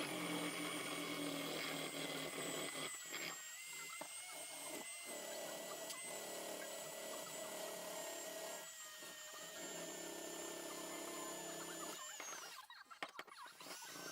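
Electric drill spinning a small wire brush against a block plane's metal body, stripping off loose paint. A steady whine that sags slowly in pitch, stops about twelve seconds in, then starts again near the end at a lower pitch.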